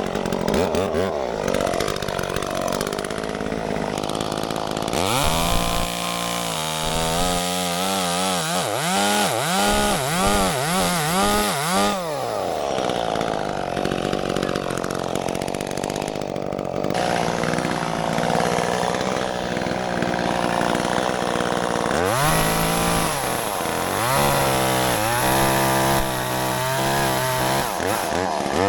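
Two-stroke chainsaw running, revved up and down over and over in two stretches with steadier running between them: a trial run after the chain has been tensioned and chain oil topped up.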